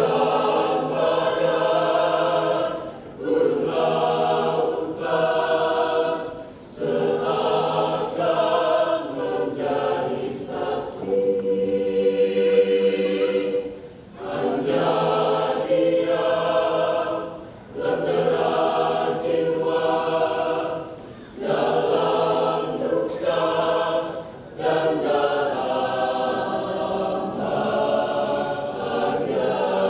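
Mixed choir of women's and men's voices singing together, in phrases of a few seconds broken by short pauses.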